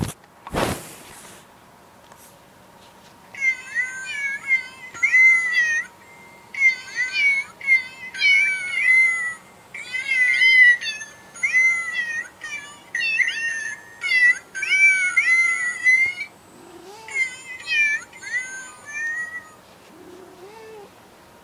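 A musical birthday card plays a tune sung in recorded cat meows: four phrases of short, high, bending meow notes. A few fainter, lower meows follow near the end.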